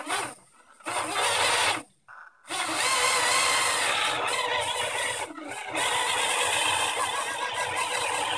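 The six coreless motors and propellers of a JJRC H20C nano hexacopter whir in short spurts as the throttle is blipped. From about two and a half seconds in they run steadily with a wavering high whine, dropping briefly a little past halfway.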